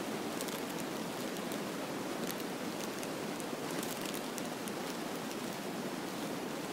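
Steady rushing background noise with faint scattered crackles.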